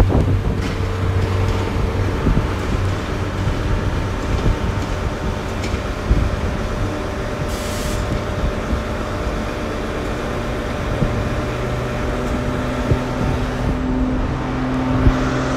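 GWR Class 150 and Class 143 Pacer diesel multiple units pulling away. The low engine drone is loudest at first and fades within about a second, leaving a steady diesel hum. A brief hiss comes about eight seconds in.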